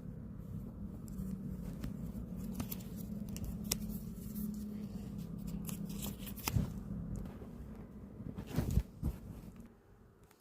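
Packaging being handled and opened by hand: scattered clicks, crinkles and tearing, loudest twice in the second half, over a steady low hum.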